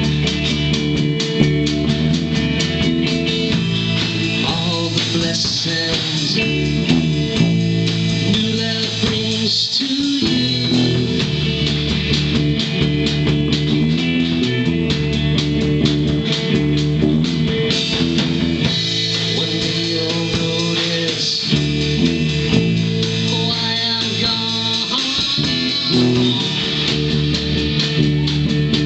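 Live band playing a song, led by electric guitar and bass guitar, loud and continuous.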